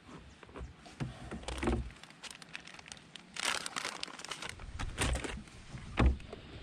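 Crinkling, rustling and clicking of gear being handled in a canoe, with a few louder scuffs and a short, solid knock about six seconds in.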